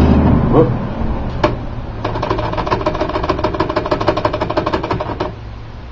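LC Smith manual typewriter: a single sharp clack about a second and a half in, then a fast, even run of metallic clicks from its mechanism, about nine a second, that stops abruptly about five seconds in.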